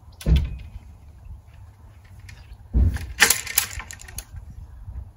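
Telescopic fibreglass antenna pole and its fittings being handled and lowered to the ground. There is a knock just after the start, then a heavier knock near three seconds followed by about a second of clicking and rattling.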